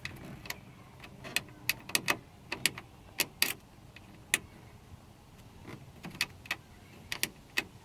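Irregular sharp clicks and taps of small metal and plastic parts, about twenty of them at uneven intervals, as a replacement interior door handle is worked into place and bolted to the door.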